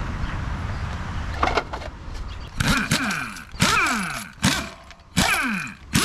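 Pneumatic impact wrench on the wheel lug nuts, run in short trigger bursts about once a second from about two and a half seconds in, each burst dropping in pitch as the motor spins down. Before that there is a steady low hum.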